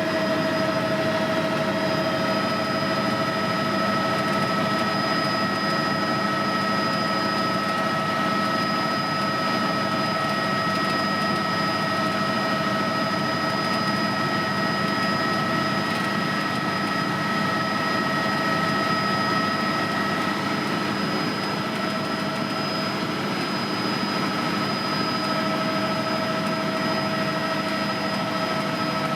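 Helicopter in flight: steady engine and rotor noise with a constant high whine.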